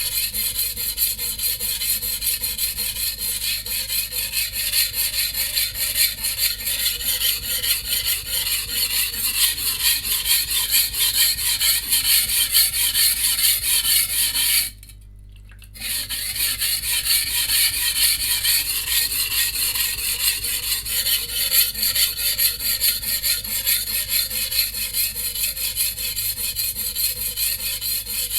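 VG10 steel edge of a Chinese cleaver being stroked back and forth on a coarse 180-grit whetstone: a continuous gritty scraping that breaks off for about a second midway. This is the stage where the chipped edge is ground back and repaired.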